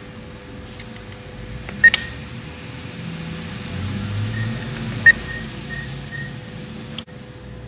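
Cash machine side buttons being pressed, each press giving a click and a short electronic beep: two loud presses about three seconds apart, with a few fainter beeps after the second, over the machine's steady hum.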